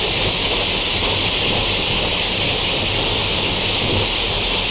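Loud, steady hiss of static noise, used as a cartoon sound effect over a censored beating.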